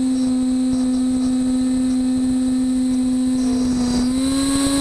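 CNC router spindle motor running at speed, a steady high whine with a noisy hiss beneath it; the pitch steps up slightly about four seconds in.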